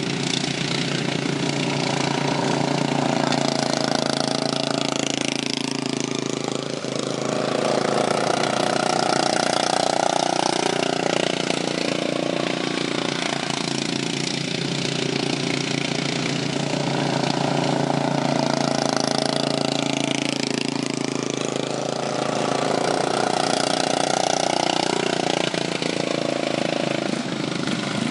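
Racing lawn mower engines running hard through the whole stretch, swelling louder and fading again in slow waves as the mowers come round the track.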